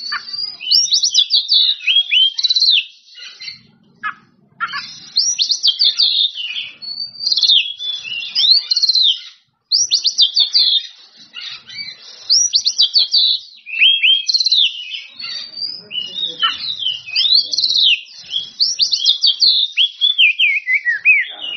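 Oriental magpie-robin (kacer) singing a loud, full song: phrases of fast whistled notes sweeping up and down, with short pauses between phrases.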